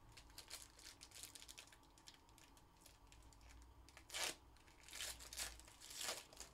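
Faint tapping and clicking of trading cards being handled, then a foil Panini Contenders baseball card pack torn open in three short rips, about four, five and six seconds in.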